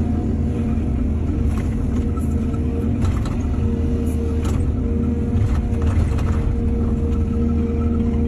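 Excavator diesel engine running steadily with a low drone and a held tone, with several short sharp knocks in the middle.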